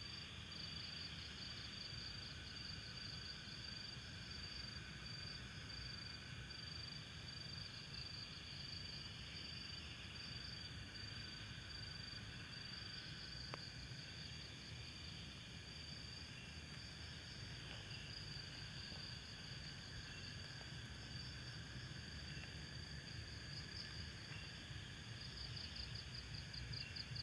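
Faint chorus of chirping insects: a steady high-pitched trill that pulses in rapid beats, with one soft click about halfway through.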